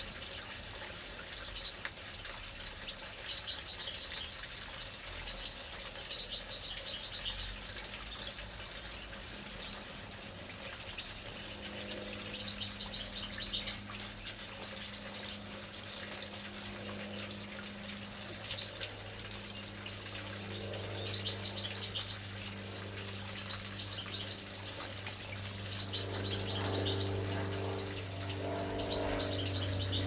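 Small garden fountain trickling water from its basin into a tub, with young European goldfinches twittering over it again and again. A low steady hum, typical of the fountain's electric pump, comes in about twelve seconds in and grows louder near the end.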